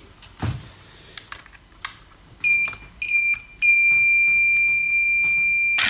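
Electric actuator motor of a Skoda Superb 2.0 diesel EGR valve, powered straight from a supply with reversed polarity, driving the valve rod back and whining with a steady high-pitched tone. The whine cuts in briefly twice about two and a half seconds in, then runs on continuously; a few light clicks come before it.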